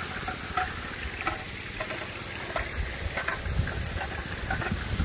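Gold Fox trommel running: water jets hiss and splash over the gravel, with scattered clicks of rocks tumbling in the rotating drum.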